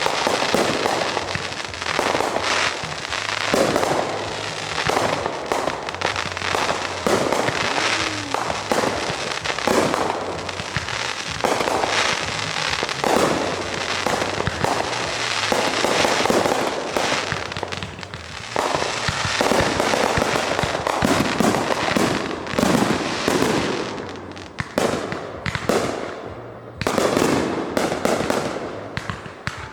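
Fireworks display: a dense, continuous barrage of bangs and crackling, thinning out with short lulls near the end.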